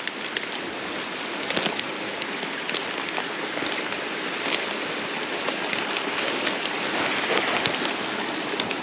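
Footsteps crunching and twigs snapping through dry bush leaf litter, over a steady rush of flowing creek water that grows a little louder toward the end.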